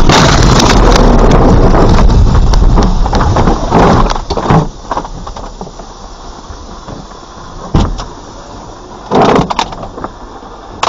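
A truck hits a Hyundai Solaris broadside: a loud crash right at the start, then about four seconds of loud crunching and scraping. After that comes a lower steady noise with a few short loud jolts. It is heard from inside the truck's cab.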